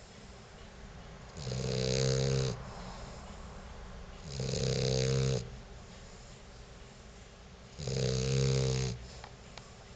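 A sleeping pet snoring: three long snores, each about a second, coming roughly every three seconds, with quiet breathing between them.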